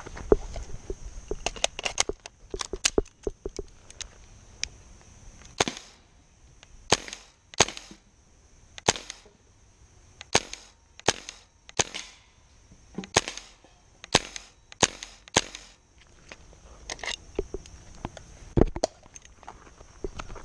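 An M4-style airsoft rifle firing single shots. Each shot is a sharp crack. There is a quick string of shots in the first few seconds, then steadier shots about once a second with short pauses in between.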